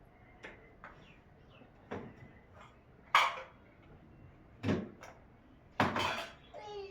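A series of separate knocks and clatters of hard objects being handled, about seven in all, the loudest about three seconds in and a quick pair near the end.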